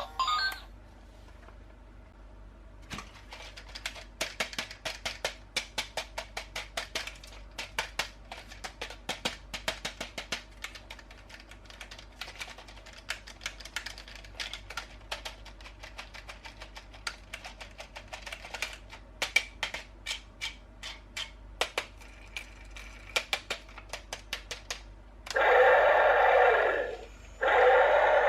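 A fast, uneven run of small clicks and ticks lasting about twenty seconds, then an electronic toy starts playing a loud song with synthetic singing near the end.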